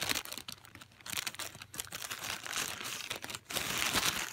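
Thin plastic mailer bag crinkling and rustling in irregular crackles as it is cut open with scissors and handled, getting louder near the end.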